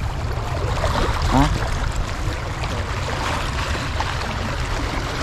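Wavy water moving and lapping, with a steady wind rumble on the microphone.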